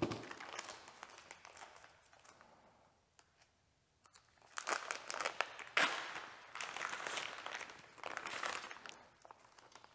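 Paper shop towels rustling and crumpling in nitrile-gloved hands, in two spells with a short quiet gap between, and a sharp click a little before six seconds in.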